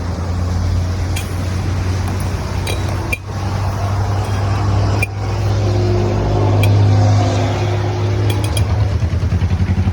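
Metal utensils clinking now and then during masala muri mixing, over a steady low hum, with a fast rhythmic rattle near the end.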